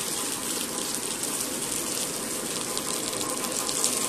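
Shallots and sliced onion sizzling in hot sesame oil in a stainless steel kadai as they are stirred with a wooden spatula, a steady hiss with faint crackles.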